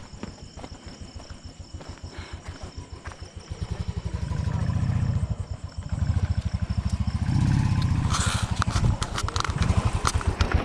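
Motorcycle engine idling with a steady, fast low pulsing that grows louder about four seconds in and again near eight seconds. Near the end there is a short hiss and a few clicks.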